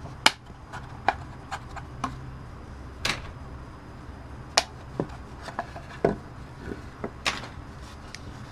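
Quick-release bar clamps being taken off a glued-up wooden bandsaw box, with the wooden parts knocking as they are handled: about a dozen irregular sharp clicks and knocks.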